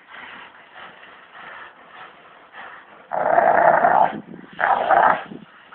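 Gurdbasar and alabay puppies growling as they wrestle in play-fight, with two louder, rougher growling spells in the second half.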